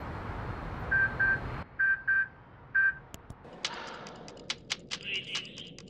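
Electronic sound-effect beeps, all on one pitch, in two pairs and then a single beep, over a hiss that cuts off after about a second and a half. From about three and a half seconds in they give way to quick, irregular clicks with a few short chirps.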